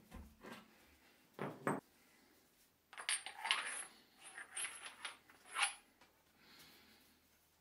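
Metal press tooling clinking and knocking as steel and aluminium pieces are handled and set down on a steel press table. Two quick knocks come about a second and a half in, then a cluster of ringing clinks about three seconds in, and single clinks near five and five and a half seconds.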